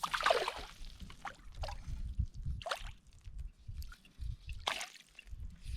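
Small irregular splashes and drips of water, with light knocks and rustling in between.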